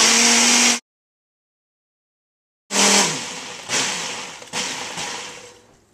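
Countertop blender motor running at full speed with a steady whine, cut off abruptly about a second in. After a gap of total silence it runs again in three short spurts about a second apart, each fading as the blades spin down.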